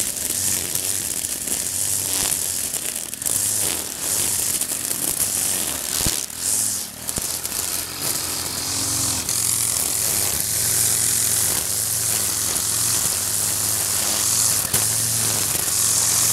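Stihl KM 130 string trimmer's small engine running at cutting speed, the nylon line hissing as it whips through grass. The engine eases briefly about six seconds in, then goes on steadily.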